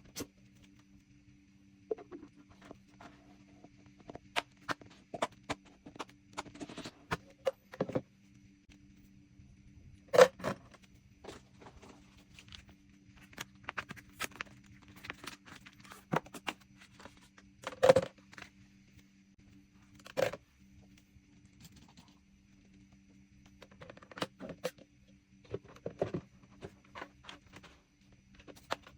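Small objects being handled and set down on a vanity table: scattered clicks, taps and knocks, two of them louder, about ten and eighteen seconds in. A faint steady low hum runs underneath.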